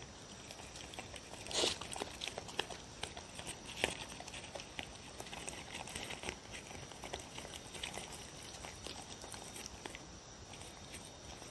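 Dogs' claws clicking and tapping on a hard floor as they shift about, with two louder taps about one and a half and four seconds in.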